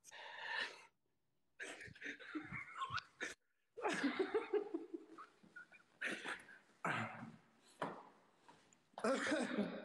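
A person laughing hard in several separate bursts, with breathy gasps and short silent breaks between.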